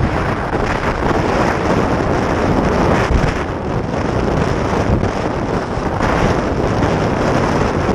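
Strong wind buffeting the microphone, with rough water washing and splashing over the bow of a sea kayak.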